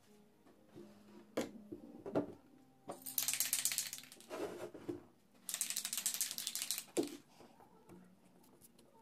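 A wooden board knocks a few times on a workbench, then an aerosol can of polyurethane gives two rattly, hissing bursts of about a second each, with a knock between and after them.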